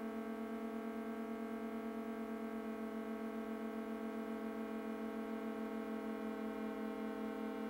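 Electronic music: a sustained drone of many steady tones stacked together. The lowest tone pulses rapidly and evenly, about six times a second.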